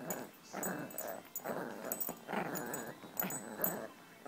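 Small Yorkshire terrier growling in a string of short, rough bursts as a hand plays with it.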